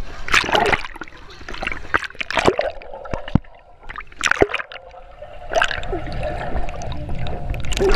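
Pool water splashing and gurgling around a waterproof action camera as it dips below the surface, with several sharp splashes and bubbling.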